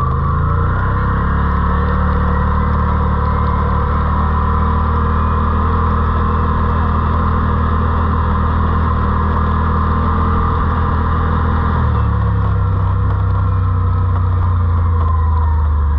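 Off-road side-by-side's engine running steadily while under way, with its pitch shifting slightly near the start and dropping about twelve seconds in.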